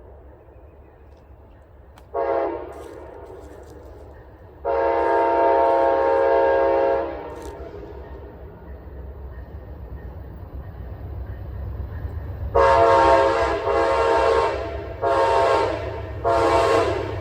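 Locomotive air horn sounding repeated blasts: a short one about two seconds in, a long one around five seconds, then four blasts in quick succession near the end. A low rumble from the approaching train grows louder underneath.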